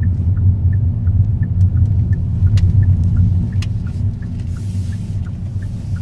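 Steady low road and engine rumble inside a moving vehicle's cabin, with faint regular ticking about three times a second and a couple of sharper clicks.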